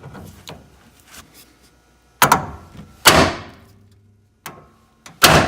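Hammer blows on a manual impact screwdriver, three hard metallic strikes with ringing tails and a few lighter knocks between. Each blow turns the bit a little, working loose a rusted Phillips door screw.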